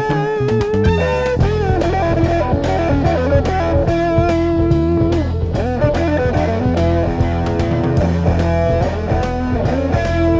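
Early-1970s rock recording: electric guitar playing a line of held notes over bass and a steady drum beat.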